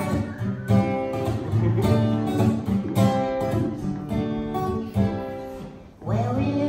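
Small acoustic band playing: strummed acoustic guitar chords over upright bass. About six seconds in the music dies down briefly, then comes straight back in.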